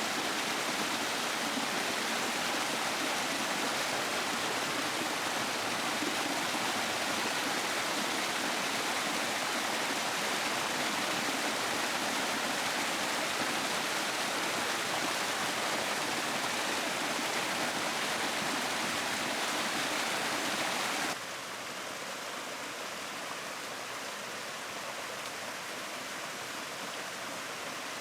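River water rushing steadily. About three-quarters of the way through it drops suddenly to a quieter, steady level.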